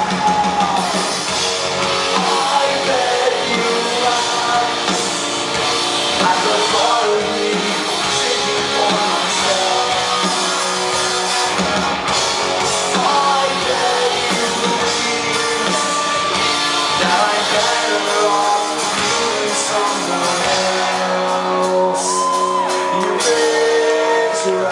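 Live rock band playing at full volume, with guitars, drums and sung and shouted vocals, echoing in a large concert hall.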